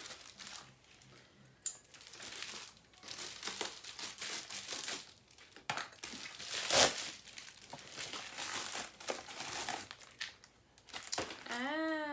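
A plastic mailer bag being torn open and crinkled by hand, in irregular bursts of rustling. A sharp crackle about seven seconds in is the loudest moment.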